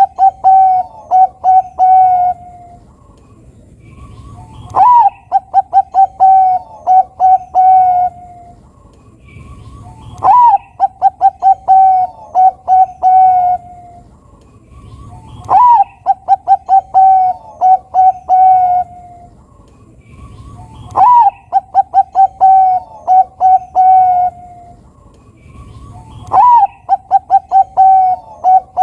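Zebra dove (Bangkok-line perkutut) singing its cooing song, one phrase about every five seconds: a rising-and-falling opening note, a quick run of short notes, then a few longer coos.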